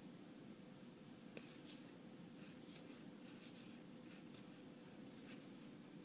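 Flesh and Blood trading cards sliding and flicking against one another as a stack is thumbed through by hand: a string of short, crisp swishes starting about a second and a half in, over a faint steady hum.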